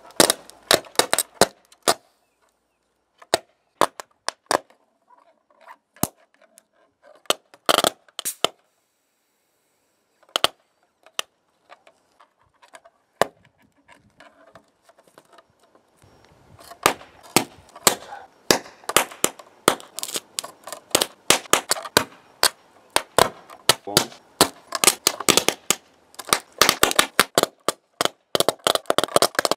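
Sharp snaps and cracks of high-current DC arcing as a copper rod fed by four 12 V lead-acid batteries in series (about 48 V) touches a motherboard's copper ground plane. Scattered snaps in the first half, then a dense, continuous crackle from about halfway through.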